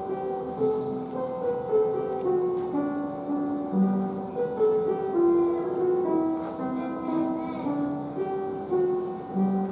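A keyboard instrument playing a hymn tune in steady held notes over a sustained high tone, the instrumental introduction to the closing hymn.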